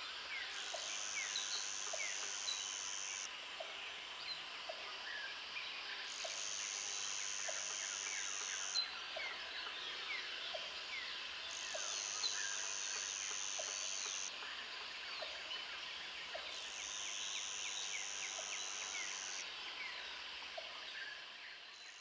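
Forest ambience of many birds chirping, with a high, steady buzz that comes in pulses of about three seconds every five to six seconds, and a short low note repeating about once a second.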